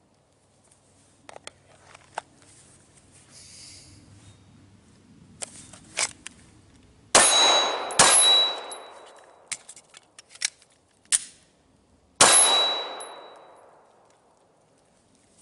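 Three pistol shots, two in quick succession about seven seconds in and a third about four seconds later. Each is followed by the ringing clang of a steel target being hit.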